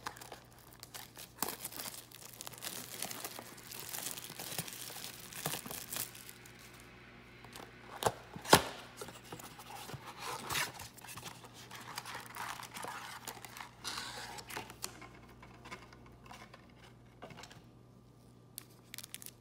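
Cardboard trading-card blaster box being torn open and handled, with foil card packs rustling and crinkling as they are pulled out. Two sharp snaps about eight seconds in are the loudest sounds.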